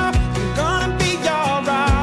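Background pop song: a sung melody with vibrato over bass and a drum beat.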